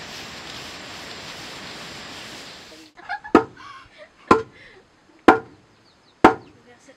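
Wooden pestle pounding into a mortar: four hard, ringing knocks about a second apart. Before them, a steady hiss that cuts off about three seconds in.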